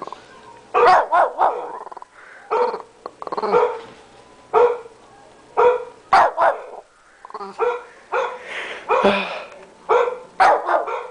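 Shih tzu barking over and over: short barks about once a second, some coming in quick pairs.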